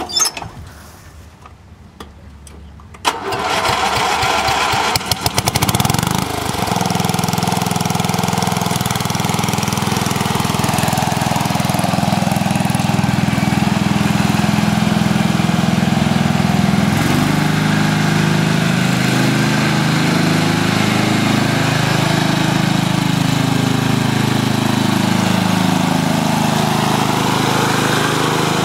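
The 12 horsepower Briggs & Stratton engine of a 1997 KGro Power Pro lawn tractor starts about three seconds in, then runs steadily as the tractor drives. From about seventeen seconds on its pitch rises and falls.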